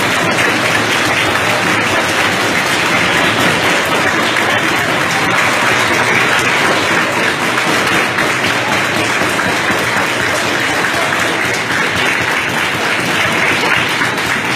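A crowd clapping hard and without a break, with shouts mixed in: a noise protest.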